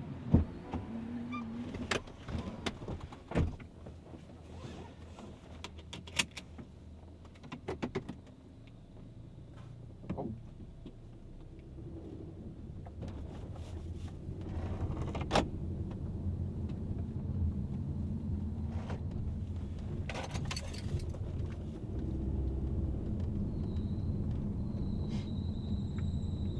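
Inside a Honda Stepwgn RP3 minivan's cabin, heard from the second-row seat: scattered clicks and knocks in the first half, then a steady low road and engine rumble as the van drives. No seat squeak is heard, the second-row seats having been fixed.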